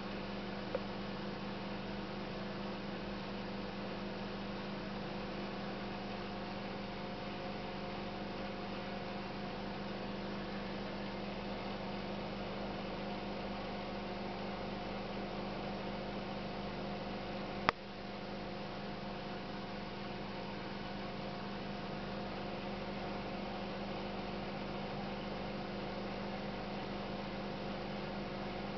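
Steady electrical hum of running aquarium equipment, with a constant low tone under a faint hiss, broken by one sharp click about two-thirds of the way through and a smaller one near the start.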